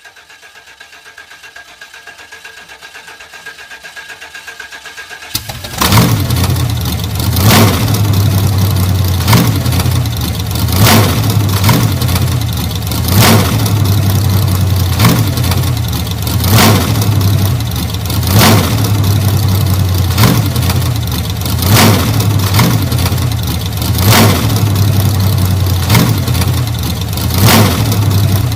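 1940 Ford's flathead V8 being started: faint rhythmic cranking that grows louder for about five seconds, then the engine catches suddenly and runs loudly, its note swelling briefly about every second and a half.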